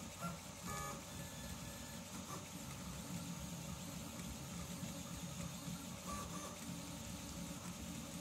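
CoreXY 3D printer printing: the stepper motors whir in quick, changing bursts over the steady hiss of its cooling fans, with a couple of brief higher tones from the motors, about a second in and again near six seconds.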